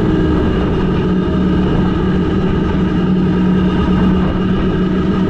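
Speedboat engine running with a steady, even drone, holding one pitch.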